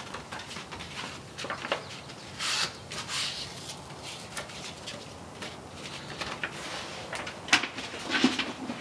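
A sheet of 600-grit sandpaper being handled and torn in half: paper rustling with a few short tearing rasps, the loudest near the end.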